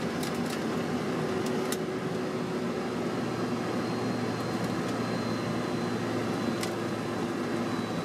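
Boeing 767 cockpit during the landing rollout: steady engine and airflow noise with a low hum and a faint high whine, and a few sharp clicks.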